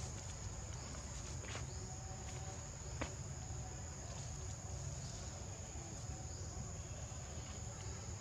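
Insects in the surrounding forest keep up one steady, unbroken high-pitched drone, with a couple of faint ticks about a second and a half and three seconds in.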